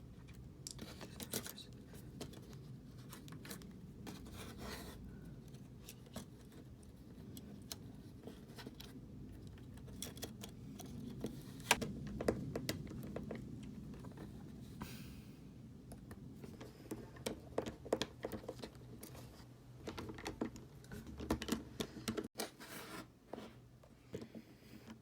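Scattered small clicks, taps and scrapes of small tools and phone parts being handled during an iPhone 6 repair, over a low steady hum.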